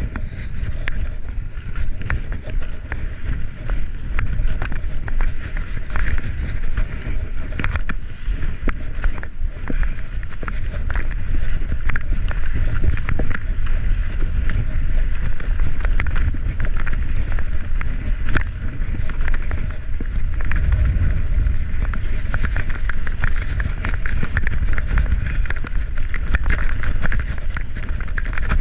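Wind rushing over a bicycle-mounted camera's microphone while riding, a steady low rumble with a hiss above it and many small clicks and rattles from the road.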